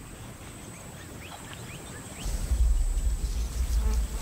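Steady high insect buzz with a few short rising bird chirps. About halfway in, a deep low rumble sets in and becomes the loudest sound.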